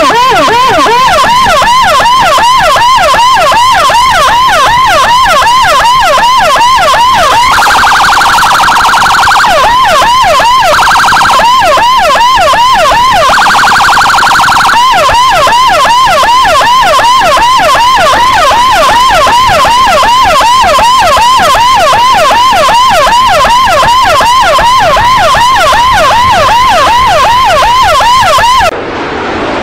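Motorcycle escort siren (a CJB 200E amplifier with Whelen tones through a Toa loudspeaker) in a fast yelp, several sweeps a second. About eight, eleven and thirteen seconds in, a steady horn tone briefly replaces the yelp. The siren cuts off just before the end and a lower rumble takes over.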